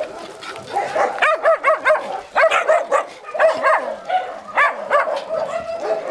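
Shelter puppies yipping and barking in quick high-pitched runs, several short calls a second at times.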